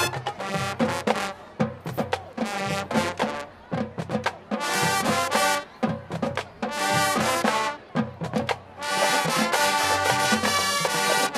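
High school marching band playing a rock arrangement: short, punchy brass hits with drums and gaps between them, swelling into fuller, held brass chords about nine seconds in.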